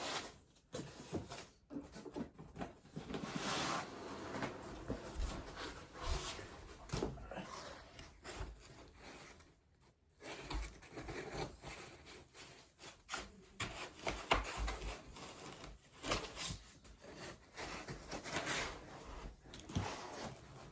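Styrofoam packing rubbing and scraping as 3D-printer parts are worked loose from the box, in irregular strokes with scattered clicks and knocks. It pauses briefly about halfway through.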